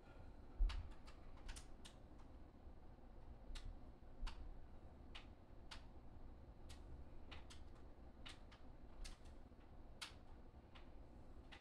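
Faint, irregular light clicks, one or two a second with uneven gaps, over a low steady rumble. A louder low thump comes about half a second in.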